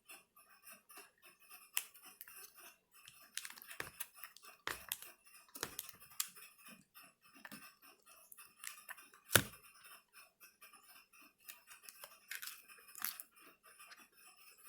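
Scattered small clicks, taps and scrapes of hands working inside an opened laptop while fitting and connecting a replacement battery, with one sharp click about nine seconds in.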